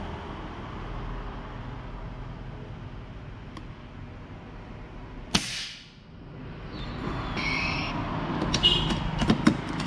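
FX Impact M3 PCP air rifle firing a slug once about five seconds in: a sharp report with a brief trailing whoosh. A run of quick sharp clicks follows near the end, over a steady background rumble.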